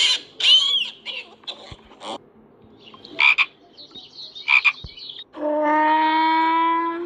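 Animal calls: a series of short, high calls, then one long, steady call near the end.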